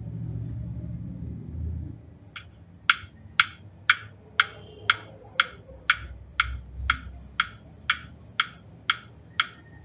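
A low rumble, then a steady run of sharp ticks starting a couple of seconds in, about two a second, some fifteen in all.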